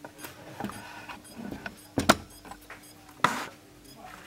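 Power supply board of a Nikai NTV3272LED5 LED TV cycling on and off in step with the blinking red power LED: faint regular ticking inside the set over a faint steady hum, with two louder clicks a little over a second apart after the middle. The supply sounds choked, which the repairer suspects comes from a short somewhere.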